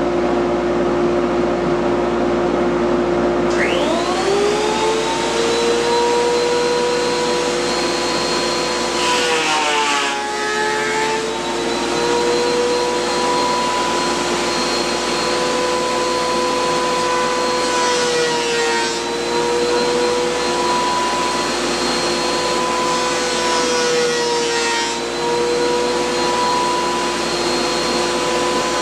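A dust collector hums steadily, then a Ridgid benchtop thickness planer is switched on about three and a half seconds in. Its motor whines up to speed and runs loud. The note dips briefly several times as the cutter head takes load from wood fed through.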